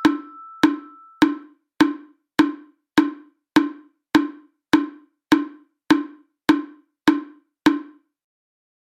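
Woodblock-like ticking sound effect, like a countdown timer: about fourteen sharp, even ticks, a little under two a second, that stop about eight seconds in. A ringing tone left over at the start fades out about a second in.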